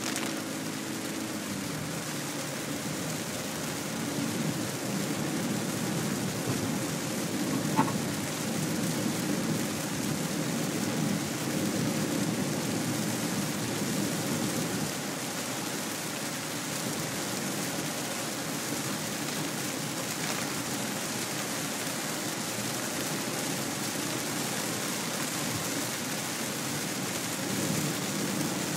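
Heavy rain falling on a moving car's roof and windscreen, heard from inside the cabin, steady throughout along with the hiss of tyres on the flooded road. A short click about eight seconds in.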